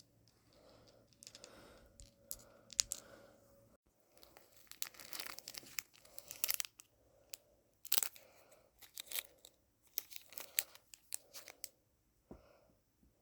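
Blind-bag packaging being torn open and crinkled by hand: a run of sharp rips and crackles, thickest in the middle of the stretch, with close heavy breathing underneath.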